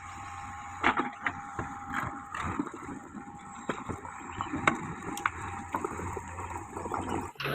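JCB 3DX backhoe loader's diesel engine running steadily under a string of irregular sharp knocks and clatters, stones striking the steel bucket as they are moved.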